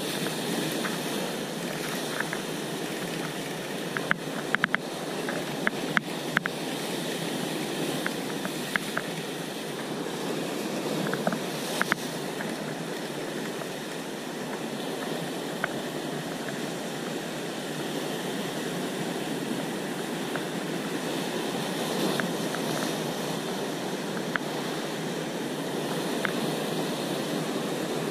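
Sea surf breaking and washing over rocks, a steady rushing, with scattered sharp clicks, most of them between about four and seven seconds in and again around twelve seconds.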